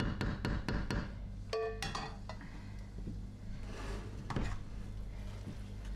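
A wooden spatula knocks and scrapes against a frying pan, a quick run of sharp taps in the first second, followed by a short metallic ring. Later a spoon scrapes softly through mashed potato in an enamel pot.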